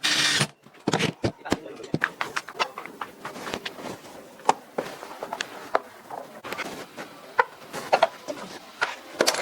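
Irregular clicks and light knocks, as of tools and wooden parts being handled at a workbench, after a short loud hiss in the first half second.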